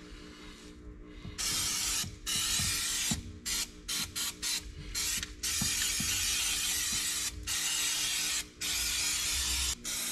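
Aerosol spray can spraying in hissing bursts, starting about a second and a half in: a string of short squirts, then several longer sprays of one to two seconds each.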